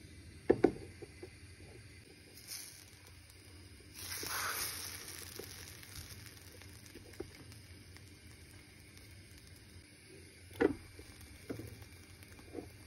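Crepe batter sizzling in a nonstick frying pan, with a louder hissing stretch about four seconds in. Utensils knock sharply against the pan a couple of times near the start and three times near the end as the crepe's edge is loosened and lifted.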